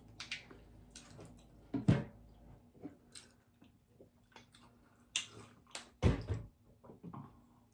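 Close-miked eating sounds from people eating fried fish: scattered wet mouth smacks and clicks of chewing, with louder knocks about two and six seconds in.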